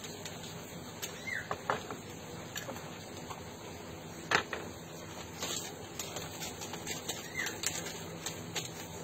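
Paper rustling with small clicks and taps as hands handle paper sheets and a small bundle on a wooden tray, with one sharper knock about four seconds in. A few short bird chirps in the background.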